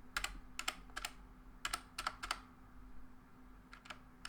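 Logitech G413 mechanical keyboard's Enter key, with a Romer-G tactile switch, pressed all the way down several times, each stroke a short clicking tap, often doubled as the key goes down and comes back up. There is a gap of about a second and a half before a few more strokes near the end.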